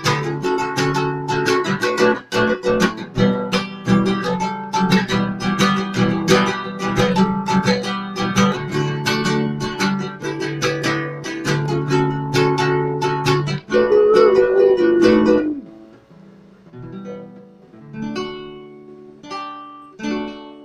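Acoustic guitar strumming chords in a steady rhythm as the song's instrumental ending. About fifteen seconds in it drops to a few softer, sparser strums that ring out.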